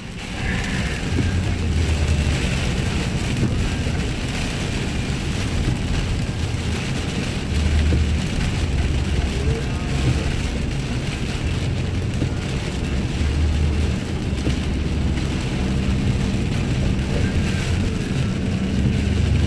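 Steady road and engine noise inside a moving car's cabin: a low rumble with tyre hiss from the wet, rain-covered highway.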